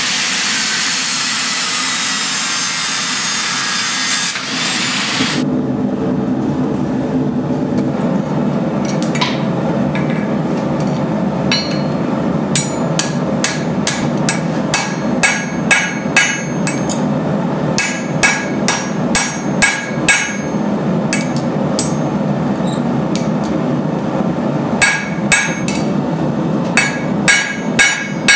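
Hand hammer striking hot steel on an anvil, over the steady low roar of the forge. A loud hiss fills the first five seconds or so, then the blows come, sparse at first and settling into a steady rhythm of about two a second, quicker near the end.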